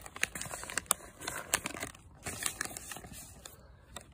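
Plastic packaging and shredded paper filler crinkling and rustling as a dog noses through a gift box: a quick run of sharp crackles that thins out after about three seconds.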